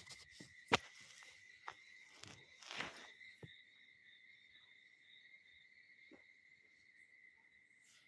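Faint handling noise from a phone being moved about: a few sharp knocks, the loudest about a second in, and a brief rustle of fabric just before three seconds. Under it runs a steady high-pitched whine.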